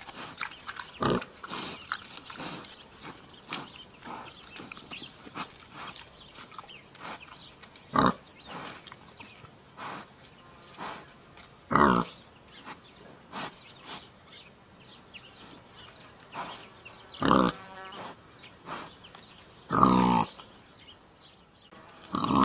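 Wild boar grunting: a string of short, irregular grunts, the loudest five spaced a few seconds apart, with many softer short sounds between them.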